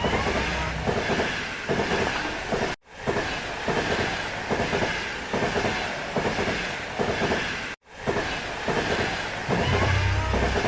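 Miniature railway train running past, its wheels clicking over the rail joints in a fast, steady clickety-clack, with some wheel squeal. The sound breaks off sharply twice, about three and eight seconds in.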